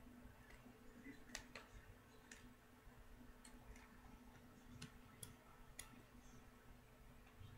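Near silence with a handful of faint, sharp clicks, irregularly spaced, from hands handling a duct-tape and tin-foil craft piece and picking up scissors, over a faint steady hum.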